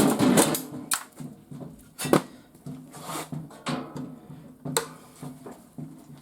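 Scattered knocks and clatters from a garage door opener being taken apart by hand, parts and casing handled and knocked about, under a faint steady low hum.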